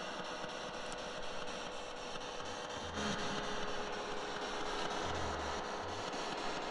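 Steady hiss of static with faint, evenly spaced ticks, growing louder about three seconds in.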